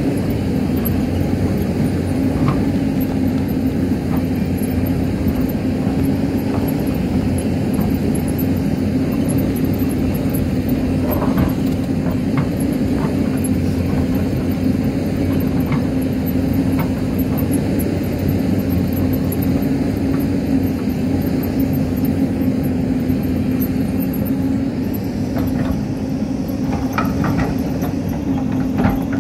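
Hyundai excavator's diesel engine running steadily at working revs, with a constant low hum. A few knocks of rock against the steel bucket come near the end.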